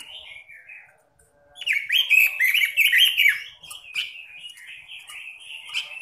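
Red-billed leiothrix (Pekin robin) singing: warbled notes, a brief pause about a second in, then a loud, fast run of quick gliding notes before the warbling carries on.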